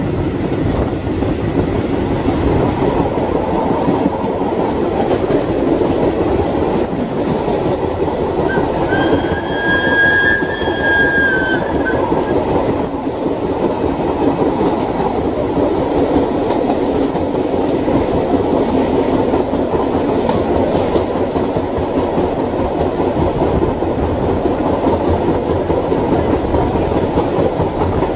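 Train running along the track: a steady rumble with the clickety-clack of the wheels over the rails. About ten seconds in, a high squeal with overtones lasts around three seconds.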